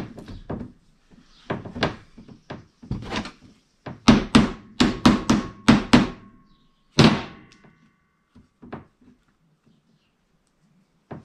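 Hammer blows on a steel drift, about a dozen sharp knocks with a quick run of them in the middle and a brief metallic ring after a few. The sprocket and hub of a chain drive differential are being tapped home onto their bearing.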